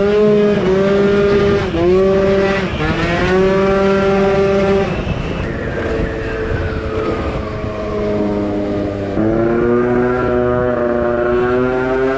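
Two-stroke 70cc-kitted Piaggio NRG MC2 scooter engine under way, running at high revs. About five seconds in the throttle closes and the pitch falls away for several seconds. Just after nine seconds it opens again and the revs climb steadily.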